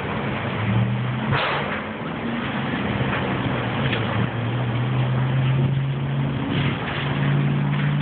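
An engine running steadily, its pitch shifting slightly, with a few short, sharp pops over it.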